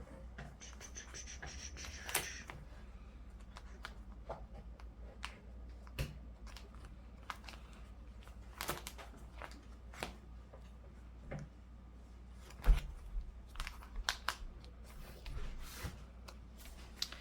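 Paper and sticker sheets being handled and peeled at a desk: scattered rustles, scratches and small clicks, with one sharper click a little past the middle, over a steady low hum.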